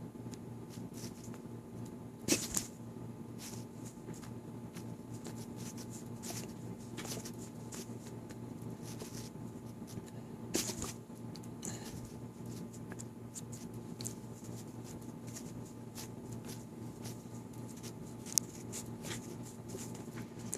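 A person hiccuping: three short, sharp hiccups, a little over two seconds in, about ten and a half seconds in, and near the end, over a steady low hum and faint small clicks.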